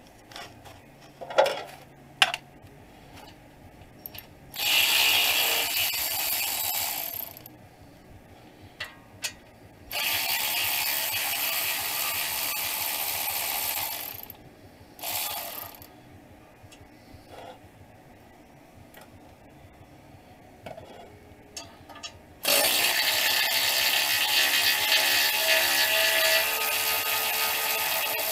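Cordless electric ratchet running in four spells of a few seconds each, the third one brief, spinning off the bolts that hold a catalytic converter in place. Between spells there are faint clicks of the tool being handled.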